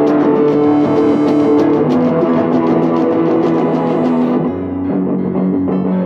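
Music: a guitar chord progression in F sharp minor with bass. It shifts to a new low note about four and a half seconds in.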